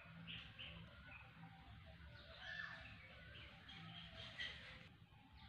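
Near silence, with faint bird chirps now and then.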